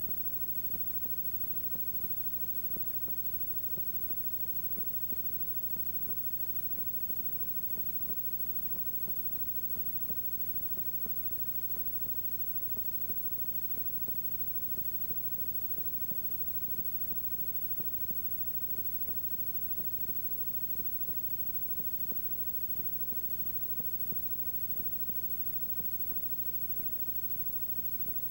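Steady electrical hum and hiss with frequent small ticks and no other sound: the noise floor of an old videotape copy.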